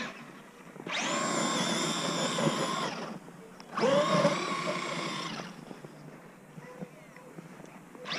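Traxxas Maxx RC truck's brushless electric motor and drivetrain whining under two bursts of throttle, each about two seconds long, the pitch climbing as each burst starts.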